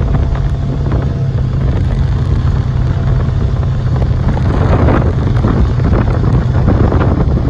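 Car driving, heard from inside the cabin: a steady low engine and road rumble with wind noise over it.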